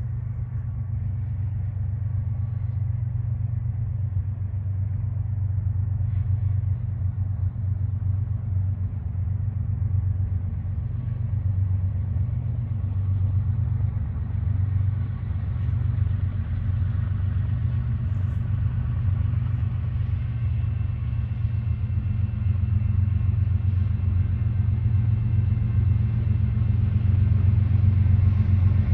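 Diesel locomotive engines rumbling with a steady deep hum that grows slowly louder and brighter toward the end.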